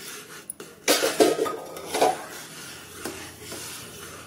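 Flat metal spatula stirring semolina into boiling water in a kadhai, scraping against the pan, with a few louder sharp sounds between about one and two seconds in.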